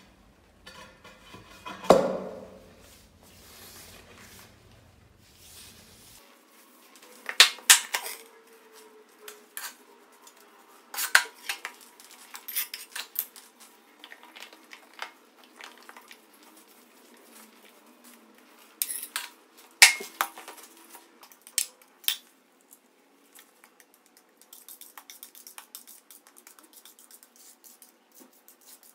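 Scattered clinks and knocks of a floor tile and hand tools against a hard tile floor as the replacement tile is set in place, then a putty knife scraping grout across the tiles near the end.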